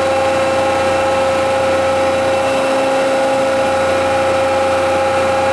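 Arter (Sundstrand) H horizontal spindle rotary surface grinder running in its automatic cycle, its main spindle turning: a steady machine hum with a constant mid-pitched whine.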